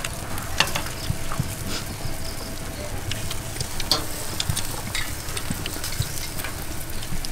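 Pork and shrimp sizzling on a metal barbecue grill, a steady hiss with occasional sharp clicks and crackles.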